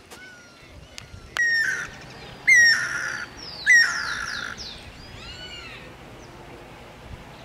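Guira cuckoos calling: three loud harsh, rasping calls about a second apart, followed by fainter falling whistled notes.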